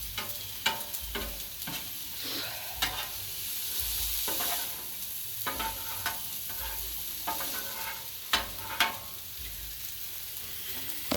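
Fried rice and vegetables sizzling on a Blackstone flat-top griddle, with metal spatulas repeatedly scraping and clinking against the steel surface as the food is stirred.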